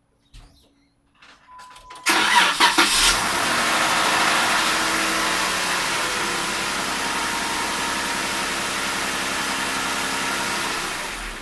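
Jeep 3.6-litre V6 engine cranked on power from a LiPo jump-starter pack alone, with the car's own battery disconnected. It catches about two seconds in, flares up in revs, then settles into a steady idle. The sound fades near the end.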